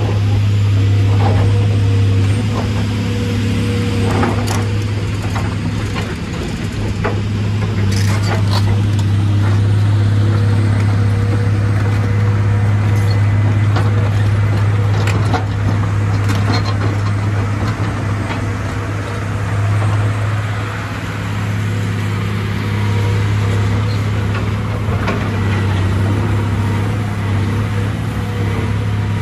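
Caterpillar 345B excavator's diesel engine running steadily as the machine works and travels on its tracks. A few short clanks come through about 4, 8 and 15 seconds in.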